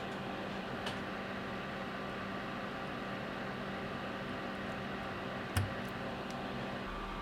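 Steady electrical hum and hiss with a few small clicks, the loudest about five and a half seconds in, typical of small Mill-Max sockets being picked up and seated into a keyboard PCB.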